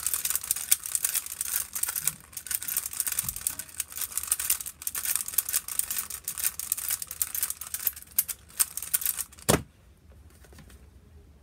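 Rubik's cube being turned as fast as possible: a dense run of plastic clicks and clacks from its layers for about nine seconds, ending in one sharp tap about nine and a half seconds in as the timer is stopped.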